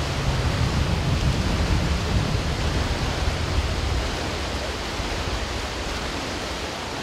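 Sea waves breaking and churning against a rocky shore: a steady rush of surf with a deep rumble underneath, heavier in the first few seconds and easing slightly after.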